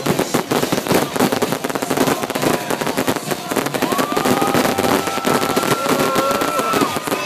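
Fireworks and firecrackers going off in a dense, rapid crackle of many bangs a second. A long held tone rises in above the crackle about four seconds in and breaks off just before the end.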